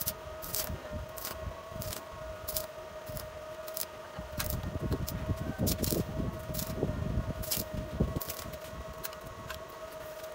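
Irregular light metal clicks and knocks as lengths of hollow square steel tubing are handled and shifted into place, heavier in the middle, over a steady high-pitched hum.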